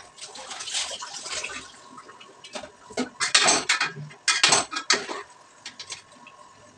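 Dishes being washed at a kitchen sink: a rush of water near the start, then steel utensils clattering and knocking together for a few seconds.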